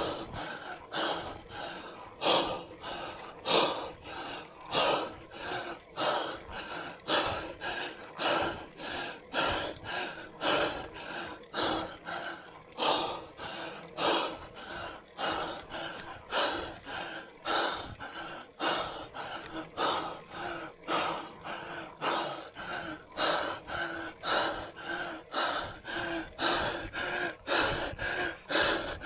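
A cyclist breathing hard and rhythmically while climbing a steep grade, with forceful gasping breaths coming roughly once a second.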